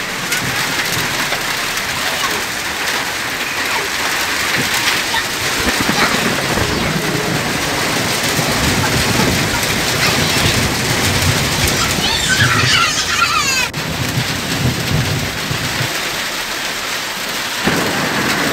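Heavy rain and hail coming down in a dense, steady hiss, with a low rumble of thunder through the middle.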